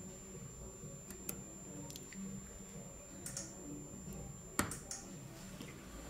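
Scattered light clicks and taps, about six in all, the sharpest a little over halfway through, over a faint steady hum and a thin high whine.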